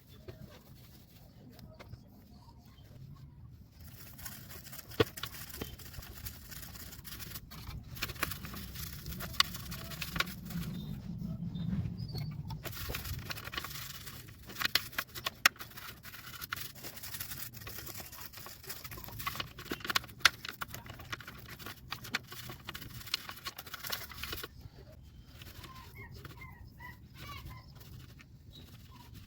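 Scrubbing on a mixer grinder during cleaning: a long stretch of hissing, brushing noise broken by scattered sharp clicks and knocks. Short bird-like chirps come near the end.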